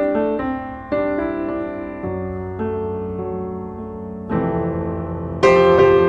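Background piano music: slow, sustained chords, each struck and left to fade, with a louder chord near the end.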